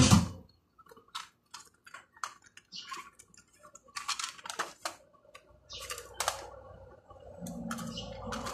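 Scattered plastic clicks and short rattles as cassette tapes are handled and swapped in an Aiwa Walkman cassette player, its tape door opened.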